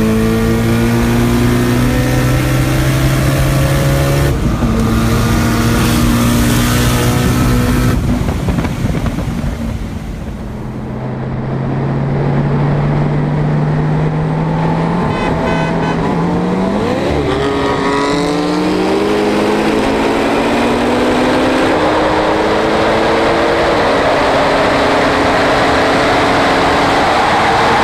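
Tuned street cars at full throttle: engine revs climbing through the gears, each quick upshift dropping the pitch, with wind and road noise building at speed. After a brief lull about ten seconds in, a twin-turbo Nissan GT-R's engine pulls hard through several more upshifts.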